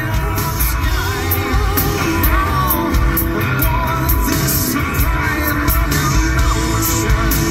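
Rock band playing live through a festival PA: a man's amplified singing over electric bass, guitar and a steady drum beat.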